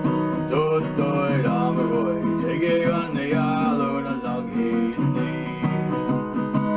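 Song played over the footage: strummed acoustic guitar, with a voice singing a wavering melody through the middle.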